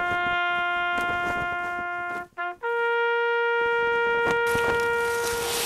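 A slow trumpet melody in long held notes: one long note, a short break with a quick note, then a higher note held for about three seconds.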